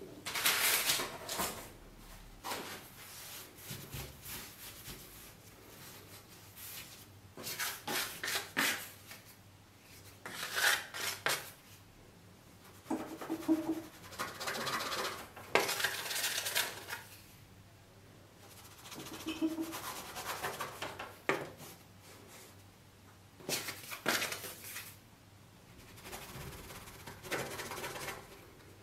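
Plastic dough scraper scraping and cutting on a floured wooden board, in a series of short scrapes a second or few apart.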